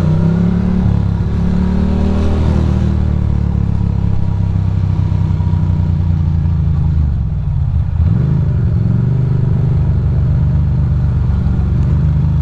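Ducati Monster's V-twin engine running under the rider. Its note falls and climbs back up twice, near the start and about seven to eight seconds in, as the throttle is eased off and opened again.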